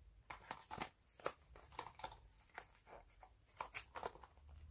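Faint, scattered clicks and scratches of fingers handling and working at a small cardboard box to open it.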